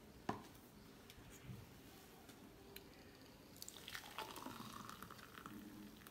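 Frothy sweet lime juice poured from a plastic juicer jug into a glass mug, trickling and splashing from about three and a half seconds in. A single light knock sounds near the start.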